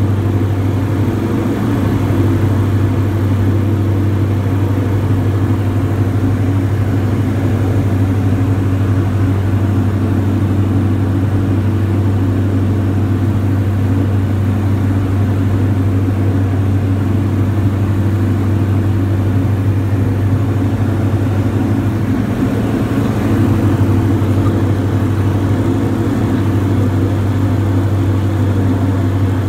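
Diamond DA42 Twin Star's twin engines and propellers heard inside the cabin: a steady, loud low drone on approach to landing.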